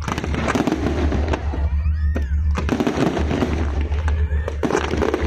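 Aerial fireworks going off in a dense barrage, sharp bangs one after another over a crackle of small bursts and a low rumble of booms.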